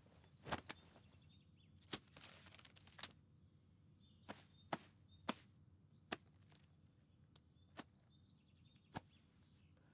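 Light knocks and taps of things being picked up and set down as a room is tidied, about a dozen scattered through, with a brief rustle of cloth about two seconds in; otherwise near silence.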